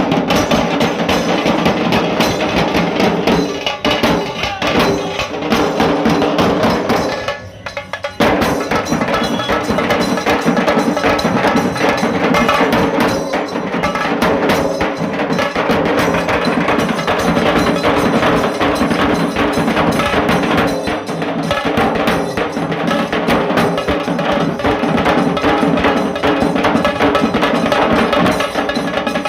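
Dhol tasha drum band playing loudly: dhol barrel drums and tasha kettle drums beating a dense, fast rhythm. The playing drops away briefly about seven seconds in and comes back in at full strength about a second later.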